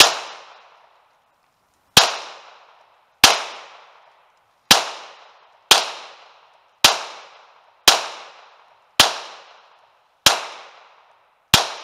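Ten shots from a Glock 17 Generation 4 9mm pistol firing 147-grain subsonic hollow-point rounds. The first two are about two seconds apart and the rest come about every second to second and a half. Each sharp report fades off in a short echo.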